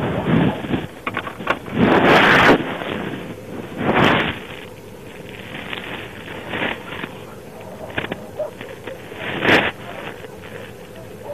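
Wind noise and crackle on the microphone, coming in gusts that are loudest about two, four and nine and a half seconds in.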